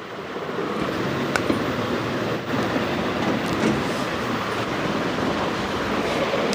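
Steady rushing noise, with a couple of faint clicks about a second and a half and two and a half seconds in.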